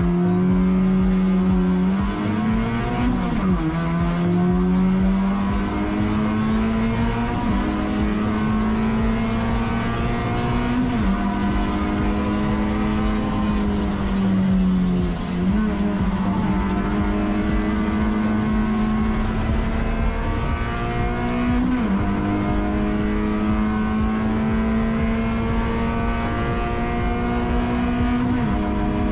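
Honda Brio race car's engine under full throttle at a race start, its note climbing slowly through each gear and dropping sharply at each upshift, five times.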